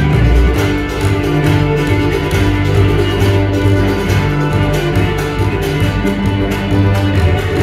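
Bluegrass string band playing an instrumental passage: fiddle and bowed cello over a plucked upright bass, with steady bass notes under picked and bowed melody.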